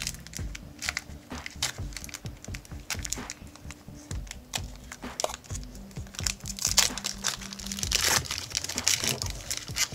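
Crinkling and crackling of a trading-card pack's wrapper as it is torn open and handled, many quick rustles, with quiet background music under it.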